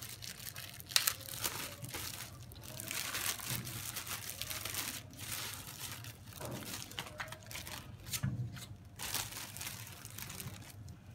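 Clear plastic packaging bags crinkling and rustling in irregular bursts as they are handled and opened, with a sharp crackle about a second in.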